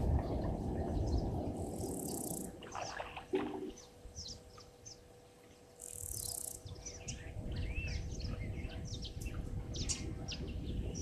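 Wild birds chirping and calling in many short high notes, with two brief high hisses about four seconds apart. Under them runs a low rumble of wind on the microphone that fades out for a few seconds in the middle and returns.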